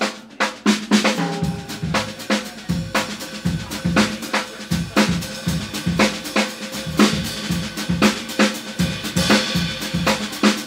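Opening of a piano, sax, bass and drums quartet recording, with the drum kit out in front playing a busy groove of snare, kick drum, hi-hat and cymbal hits over a low held note.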